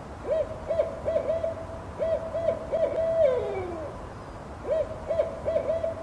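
An owl hooting: a quick run of short hoots on one pitch, ending in a longer hoot that slides down. A second run starts near the end.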